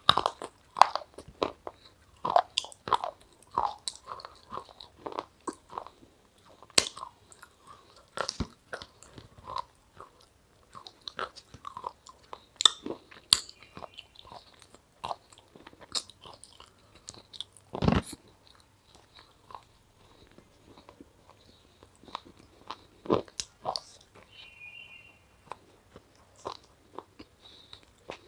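Close-up crunching and chewing: someone biting pieces off a hard, brittle white-coated food and chewing them, with many irregular sharp crunches and one louder crunch about two-thirds of the way through.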